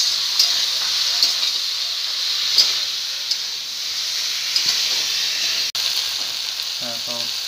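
Potato and brinjal pieces frying in oil in an aluminium kadai, a steady sizzle, with a few clicks of the metal spatula against the pan in the first few seconds.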